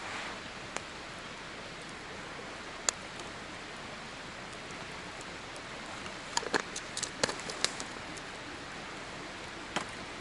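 Wood campfire crackling: scattered sharp pops, with a quick cluster of them about six to eight seconds in, over a steady hiss.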